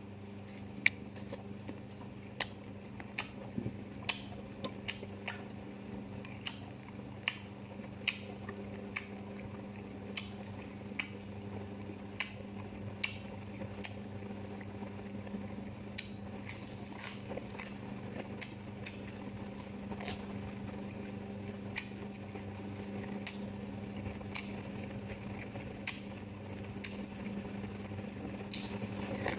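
Balut (fertilised duck eggs) and raw vegetables being eaten close to the microphone. Irregular sharp clicks and crunches of biting and chewing, with light utensil clinks, run over a steady low hum.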